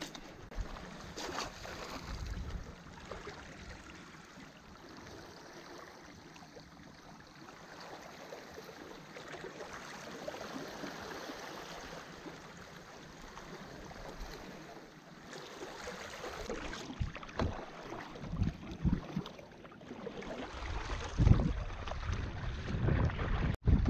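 Water lapping and sloshing at the shoreline, with wind buffeting the microphone, in louder gusts over the last few seconds.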